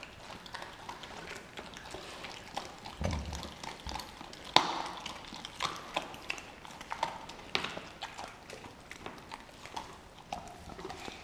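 Two dogs tugging at and chewing a whole raw turkey on a tile floor: irregular wet chewing and tearing sounds, with clicks and taps of teeth and claws. A dull thump comes about three seconds in, and a sharp click, the loudest sound, a second and a half later.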